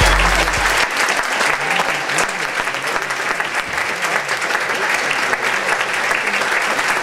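Theatre audience applauding steadily, a dense crowd of clapping hands. The deep bass of the preceding hip-hop track dies away less than a second in.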